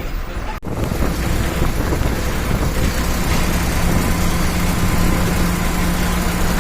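Bus engine and tyre noise from inside a moving bus on the highway: a steady rumble and road hiss, with a brief break in the sound just over half a second in and a steady hum setting in about three seconds in.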